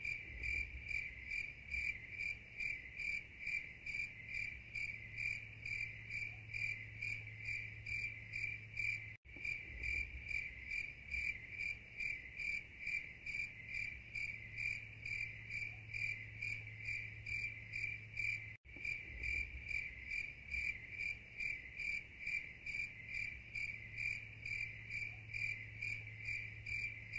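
Looped cricket-chirping sound effect: an even, steady chirp a few times a second over a low hum, quiet, restarting twice with a brief dropout each time.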